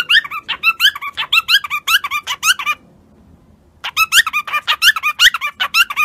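Cockatiel chirping rapidly in short, high, squeaky notes, about four or five a second, in two runs broken by a pause of about a second near the middle.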